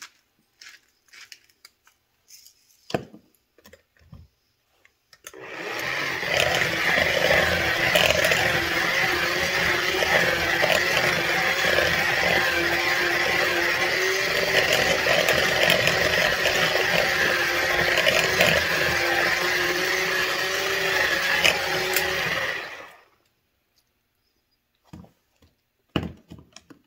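A few light clicks of a hand pepper mill grinding, then a Pampered Chef Flex+ cordless hand mixer starts about five seconds in, its motor running at one steady speed with the wire beaters whipping eggs, cheese and bacon in a bowl for around seventeen seconds before it cuts off.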